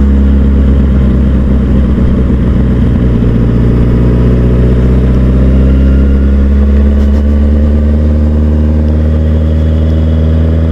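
Honda CBR sport motorcycle's engine running at steady revs while being ridden, its pitch holding fairly even.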